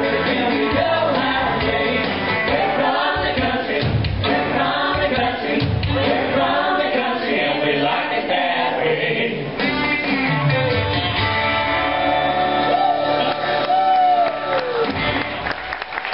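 Stage show music: several voices singing together over instrumental backing, with a held note that slides down near the end.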